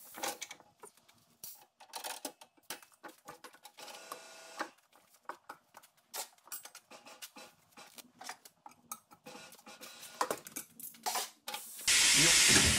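A tyre changer mounting a Toyo Open Country R/T tyre onto a steel wheel: many scattered clicks and knocks of rubber and steel as the tyre is worked onto the rim. Near the end a sudden loud hiss of air starts.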